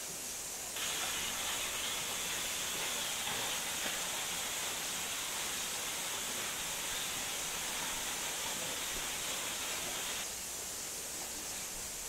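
Steady rushing of a waterfall of about 15 m falling into a pool. It rises sharply in level about a second in and drops back shortly before the end.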